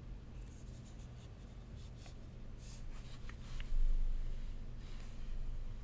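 Scattered keystrokes on a custom 60% keyboard with HMX KD400 switches on an aluminium plate, a few short clacks and taps, with a low thump about four seconds in and a faint low hum throughout.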